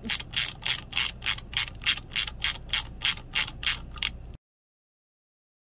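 Socket ratchet clicking in an even rhythm, about three clicks a second, as a valve-cover bolt is run in. The sound cuts off suddenly near the end.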